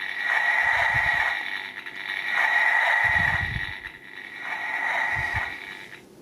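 Electronic robot sound effect from a Transformers Rescue Bots Optimus Primal toy's small built-in speaker, swelling and fading about three times, with a few soft low thumps.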